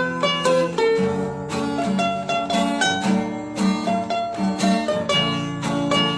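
Background music led by quick plucked strings in a bright, bouncy melody with a steady beat.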